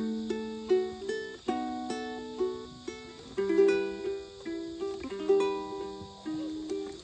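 Ukulele played solo, a run of plucked chords and single melody notes, each note starting sharply and fading away.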